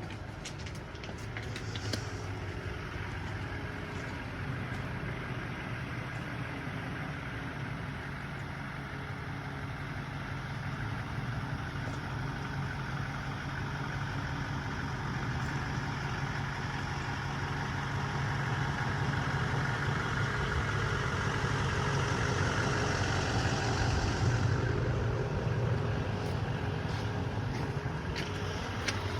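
A vehicle engine running steadily with a low hum, joined by a rushing noise that builds up and then cuts off sharply about 24 seconds in.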